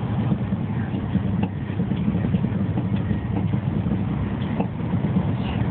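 Steady low rumble heard inside the passenger car of a high-speed train running at speed, with a few faint clicks over it.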